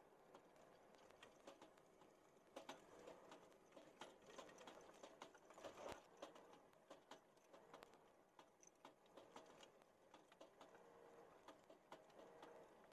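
Faint, irregular clicks and knocks of loose gear rattling inside a moving Humvee's cabin, a little busier around the middle.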